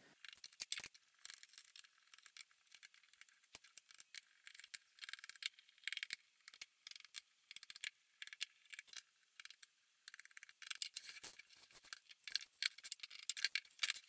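Faint, irregular small clicks and scraping of a Phillips screwdriver backing tiny screws out of a plastic laptop base, with small screws being handled and set down.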